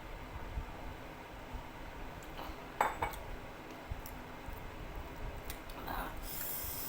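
Eating sounds: cutlery clinking against a bowl of noodle soup, with a few sharp clicks about three seconds in and again near six seconds, and a short hiss near the end.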